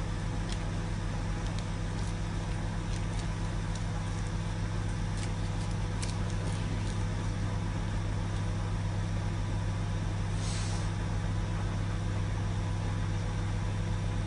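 Steady low electrical hum of a running kitchen appliance, with faint crisp clicks of a cat chewing a lettuce leaf over the first several seconds and a short hiss about ten seconds in.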